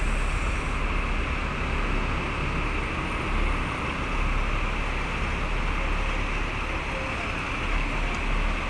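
Steady street traffic noise: double-decker buses and cars running close by, with a continuous low rumble.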